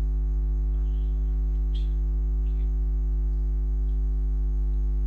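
Steady electrical mains hum with a buzzing stack of overtones, picked up by the microphone, with one word spoken faintly about halfway through.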